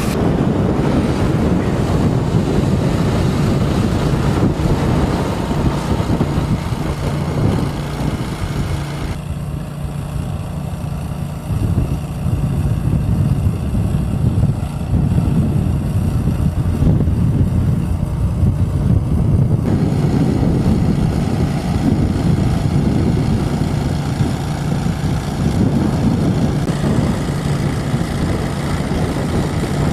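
A steady, loud, low engine rumble mixed with rough noise.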